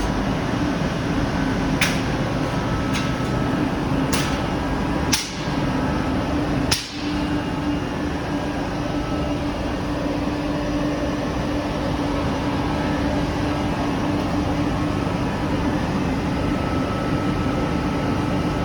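Welding machine for clothes-drying racks running with a steady mechanical hum, with a few sharp clicks in the first seven seconds.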